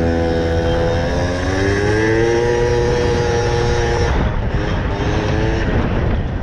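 Peugeot Fox moped's small two-stroke engine running under throttle. Its note rises about a second and a half in and holds, then drops sharply as the throttle is shut about four seconds in, and picks up briefly again.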